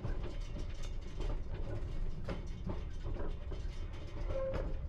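Piccadilly line 1973 Stock tube train running slowly over depot pointwork, heard from the driving cab: a steady low rumble with scattered light clicks and a short faint whine near the end.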